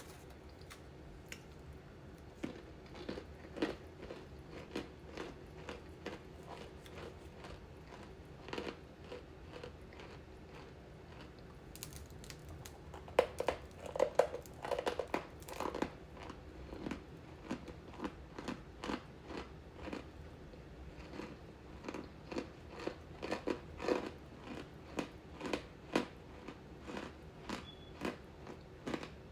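Close-up chewing of crunchy candy: irregular sharp crunches every half second or so, with a louder run of bites about halfway through.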